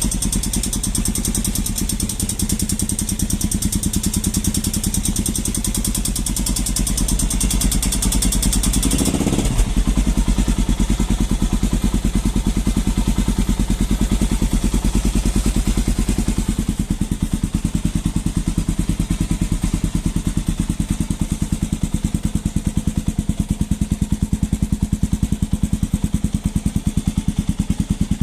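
Honda Falcon single-cylinder motorcycle engine idling cold with a clattering noise, the cold-start noise an owner takes for a loose valve. A mechanic called it normal: a compression valve that raises the idle until the engine warms. The sound shifts with a brief thump about nine seconds in, then settles slightly quieter with a plainer beat from about seventeen seconds in.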